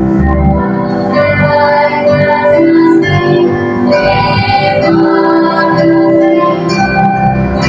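A school choir of ninth-grade students singing a slow hymn in sustained notes with instrumental accompaniment.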